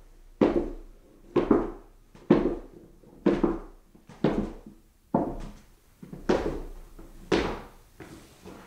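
Footsteps walking up a flight of stairs at a slow, even pace, about one step a second, each footfall a solid thunk with a short ring.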